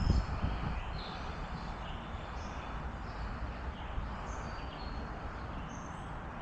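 Birds chirping in many short, scattered calls over a steady rushing outdoor background with a low rumble, a louder low rumble fading out in the first half second.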